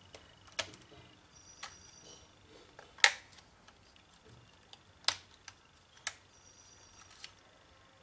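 Sharp clicks of laptop SO-DIMM RAM slots: the spring retaining clips are pushed apart and the memory modules snap up and are pulled free. About six separate clicks, the loudest about three seconds in.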